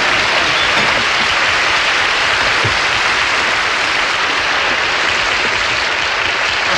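Studio audience applauding in one steady, unbroken round.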